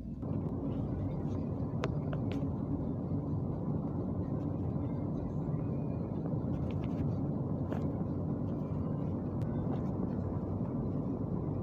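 Steady low rumble of a moving passenger train heard from inside the carriage, with a few faint clicks and knocks on top.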